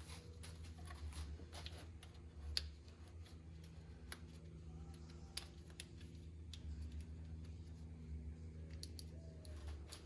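Scattered light clicks and taps of hand work on battery cables and fittings, two sharper clicks about a third and halfway through, over a faint steady low hum.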